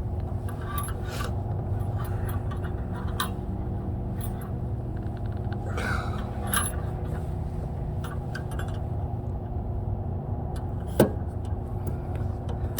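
Light metallic clinks and scrapes of hands and tools working loose car fittings, with one sharp click about eleven seconds in, over a steady low hum.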